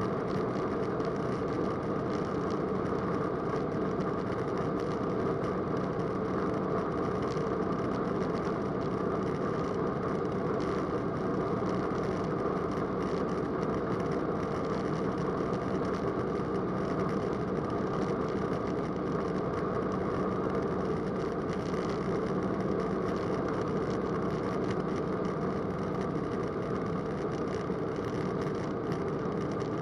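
Roland Aircraft Z602 ultralight's engine and propeller running steadily in flight, a constant even drone heard inside the cockpit.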